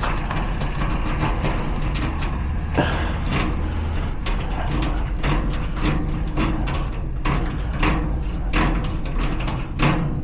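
Metal picking tools working inside a garage door lock cylinder: many small, irregular clicks and scrapes as the pins are worked, over a steady low rumble.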